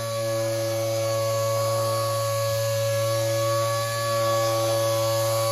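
Air-powered random orbital sander running steadily with a whine while wet sanding the clear coat of a painted car panel with a 3000-grit pad.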